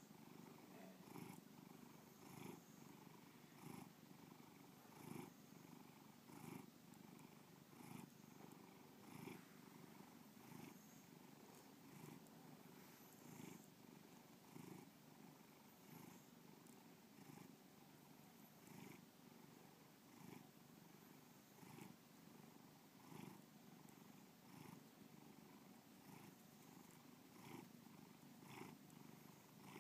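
Domestic cat purring steadily and faintly, the purr swelling in a regular rhythm about every second and a half.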